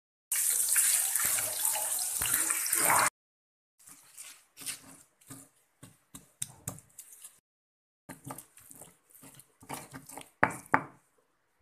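Tomatoes, shallots and chilies sizzling as they fry in oil in a wok; the sizzle stops abruptly about three seconds in. Then a pestle crushing and grinding them in a stone mortar (cobek), a run of irregular knocks and scrapes.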